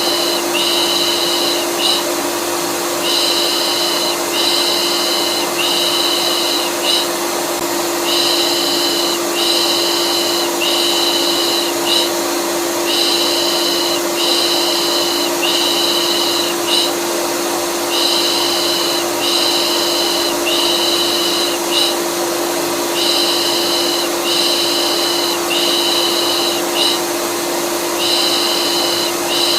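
Vacuum cleaner running steadily with a constant hum, overlaid with a looped 'pış pış' shushing: hissing shushes about a second each, in sets of three with a short pause between sets. It is white noise made for calming a colicky baby.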